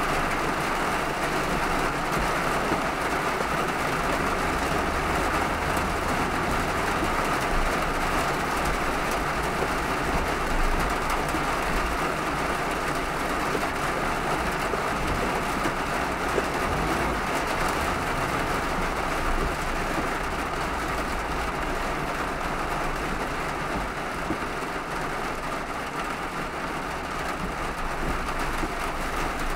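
Car driving on a wet road in heavy rain: a steady hiss of rain and tyres on the wet surface over a low road rumble.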